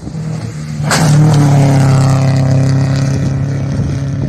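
Rally car passing at speed on a gravel stage. Its engine note jumps to its loudest about a second in as the car goes by, with a short burst of noise, then holds a steady high-revving note that slowly fades as it drives away.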